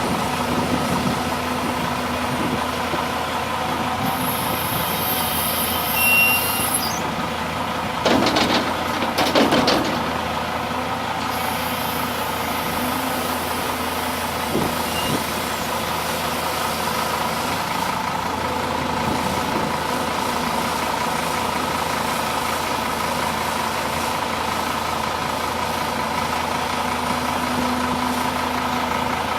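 CAT 336D long-reach excavator's diesel engine and hydraulics running steadily at work, with a steady whine over the engine. About eight to ten seconds in there are a few loud bursts of clatter, and a high hiss a few seconds before that.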